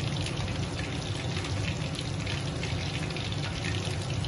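Cornflake-coated fish pakoras deep-frying in hot oil in a steel kadhai: a steady sizzle full of fine crackles over a low steady hum. The pieces are near the end of frying, well coloured and almost done.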